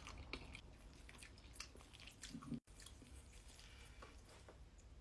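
Near silence with faint, scattered soft clicks and squishy food sounds at a close microphone. About two and a half seconds in there is a small low thump, then a brief total dropout.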